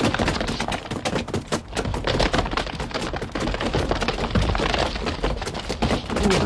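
A dense, irregular volley of sharp bangs and cracks, several a second, with no let-up.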